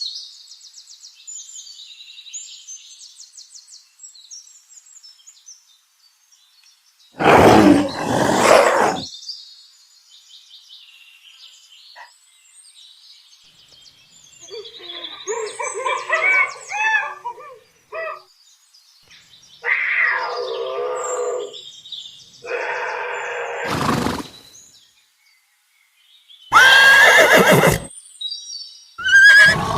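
A string of different animal calls played one after another: high twittering at the start, then several separate loud calls and cries with gaps between them.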